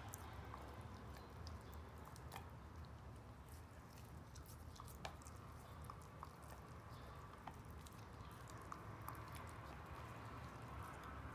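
Border Collie licking and gnawing at a piece of raw meat: faint, irregular wet clicks and smacks over a low steady hum.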